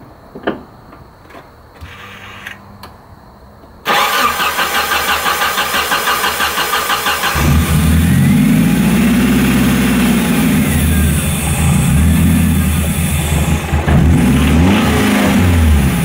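A few clicks, then the Nissan 240SX's four-cylinder engine is cranked over by the starter for about three and a half seconds. It catches and runs, with the revs rising and falling. The engine is suspected of having rod knock.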